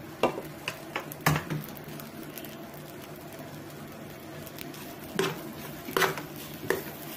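A spoon stirring cooked rice and shredded chicken in a pot: soft squishes of the food, with irregular scrapes and knocks of the spoon against the pot. There are a few in the first second and a half, and several more in the last two seconds.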